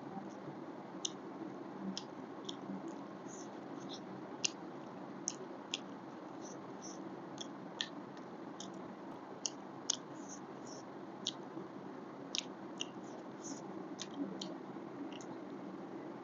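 A person chewing chicken close to the microphone: irregular short wet mouth clicks and smacks, about one or two a second, over a steady low hum.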